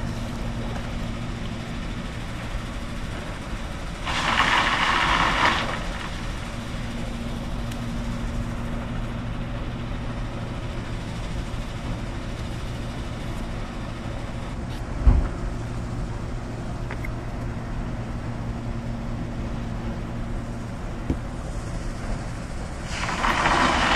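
Steady low hum of construction-site machinery, the noise the angler likens to cement being poured into a big barrel. Two short hissing bursts come about 4 seconds in and again near the end, and a single low thump comes about 15 seconds in.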